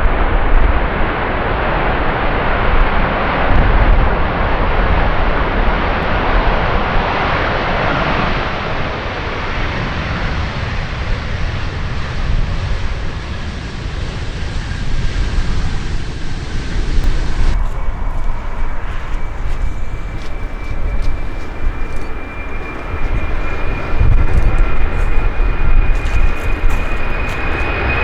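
Engine noise of a large aircraft passing close by. About two-thirds of the way through it cuts abruptly to another aircraft, whose engines give a steady high whine that rises slowly in pitch.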